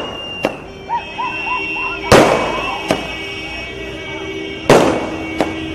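Firecrackers going off in the street: about five sharp bangs, the loudest about two seconds in and again near five seconds. Short rising-and-falling whistle-like tones sound about a second in.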